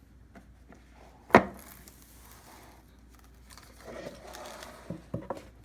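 A product box being opened and its packaging handled: one sharp snap about a second and a half in, then rustling of cardboard and packaging, with a few light knocks near the end.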